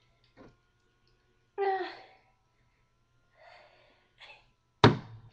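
A person's short breathy sounds and a brief voiced sound, then near the end a sudden, very loud explosive burst of breath, like a sneeze.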